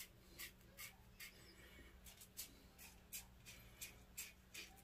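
Double-edge safety razor scraping through lathered stubble in short, quick strokes, about two or three a second. Each stroke is faint.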